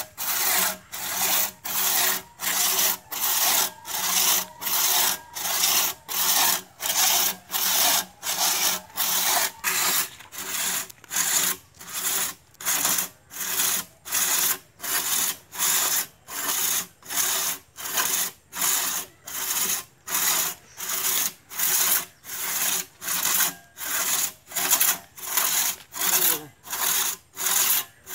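Two-man crosscut hand saw cutting through a felled tree trunk, rasping back and forth at a steady pace of about three strokes every two seconds.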